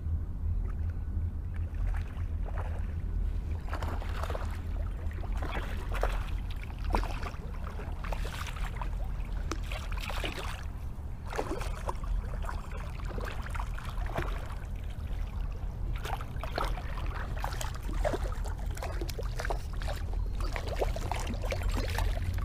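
Irregular splashing and sloshing of water as a hooked rainbow trout thrashes at the surface near the boat, over a steady low rumble.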